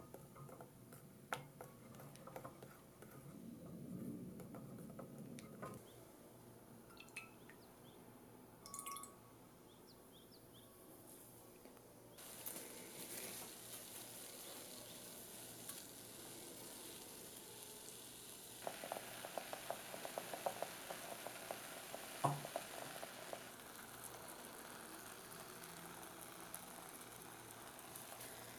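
A spatula stirs melted chocolate in a glass bowl over hot water, making soft scrapes and small clicks. About twelve seconds in, this gives way to cream heating in a stainless steel pot with a steady sizzle. From about nineteen seconds in the cream is boiling and foaming with dense, rapid bubbling and crackling.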